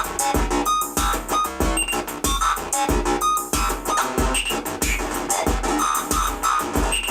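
Repetitive electronic music: a Korg Volca Keys analog synthesizer playing a looping factory-preset pattern over a drum machine's steady kick beat.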